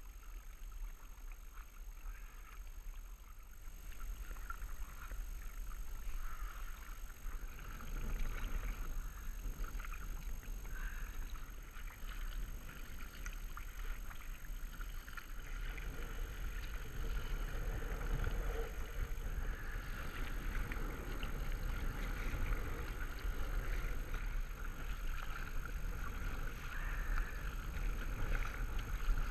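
Paddling a packraft: kayak paddle blades dipping and splashing, and water moving against the inflatable hull, over a steady low rumble. The water noise grows busier about halfway through, as the water gets choppier.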